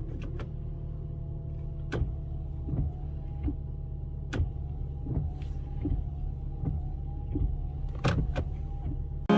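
Car windshield wiper running, heard from inside the car: a steady low hum with a faint thin whine, and sharp knocks about two seconds in, near the middle and twice in quick succession near the end.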